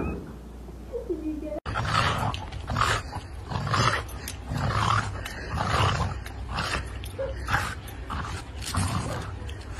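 A dog making rough, growl-like noises in short bursts about once a second.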